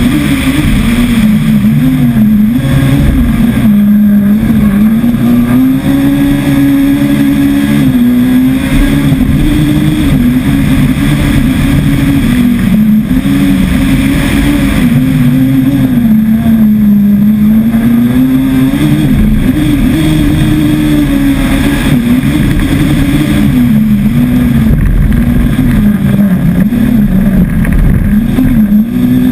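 Rallycross car's engine running hard at high revs, its pitch repeatedly climbing and dropping as the car accelerates, lifts off and changes gear through the corners, over road and wind noise.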